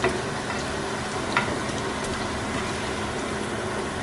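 Chicken adobo sizzling and bubbling in oil and soy-vinegar sauce in a pan, a steady crackling hiss with a couple of brief sharper pops.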